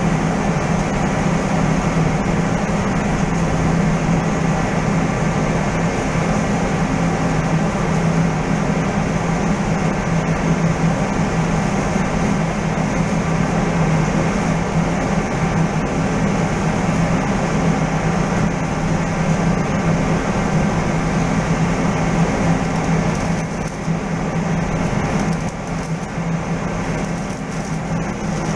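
Steady, loud mechanical drone with a strong low hum and a noisy wash over it, easing slightly near the end.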